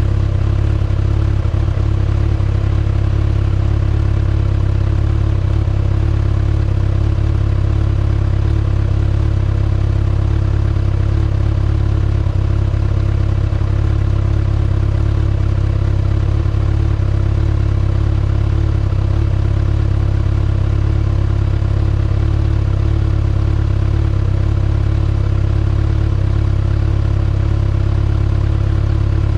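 2019 Kawasaki ZX-6R's 636 cc inline-four idling steadily through its stock exhaust, holding an even pitch without revving.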